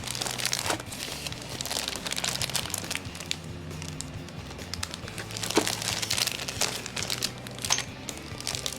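Packaging crinkling and rustling as it is handled, in irregular crackly bursts over background music with steady low notes.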